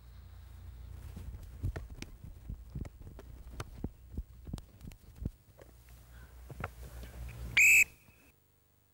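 Irregular thuds of feet running on a grass pitch over a low wind rumble, then a short, loud whistle blast near the end.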